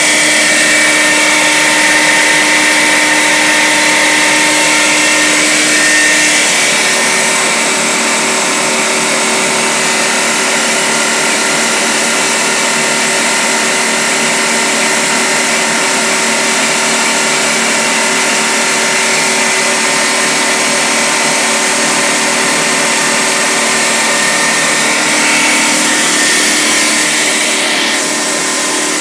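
Self-built high-pressure air compressor with an AK-150 three-stage head, driven by a 2.5 kW three-phase electric motor, running steadily under load and compressing air with its valves closed. The mix of tones in its hum shifts about six seconds in, and the sound eases slightly near the end.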